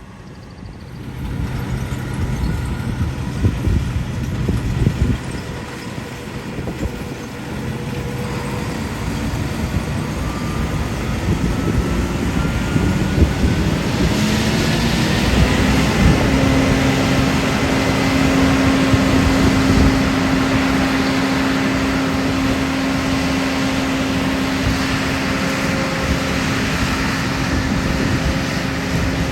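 A vehicle's engine running with rumbling road noise. About halfway through, its pitch climbs for several seconds as it speeds up, then holds steady.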